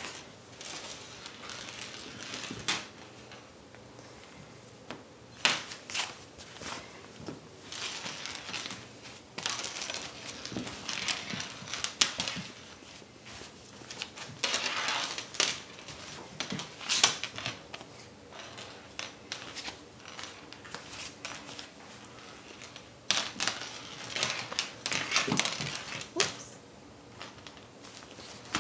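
Metal clip and ring of a lanyard clinking and jingling against a hardwood floor in irregular bursts as a kitten bats and drags it, with quieter gaps between the bursts.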